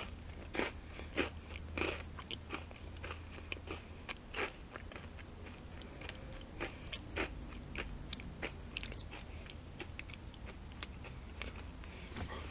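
Someone chewing a crunchy ginger nut biscuit close to the microphone: irregular crunches, several a second at first and sparser later, over a low steady hum.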